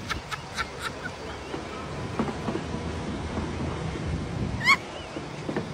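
A run of short, high-pitched honk-like calls trailing off in the first second, then a single sharp rising honk about four and a half seconds in, over a steady low rumble.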